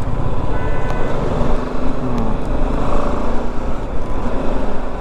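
BMW G 310 GS single-cylinder motorcycle riding through city traffic, its engine and road noise running steadily.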